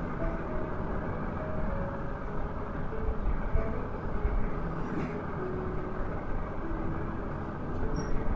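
Steady rumbling background noise with a few faint, brief tones and a small click about five seconds in.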